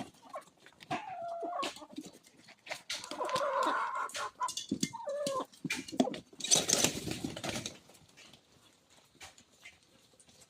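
Chickens clucking and squawking as they crowd and squabble over thrown maize. The calls die down after about eight seconds, leaving only faint scattered clicks.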